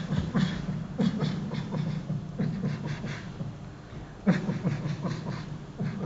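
A man mimicking heart sounds with his voice: the murmur of a double mitral lesion (mitral regurgitation with mitral stenosis) in atrial fibrillation, its beats coming at irregular intervals.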